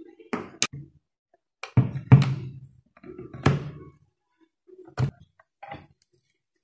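A series of short thuds and knocks, about six, as the hard plastic lid of a Prestige sandwich toaster is shut and handled.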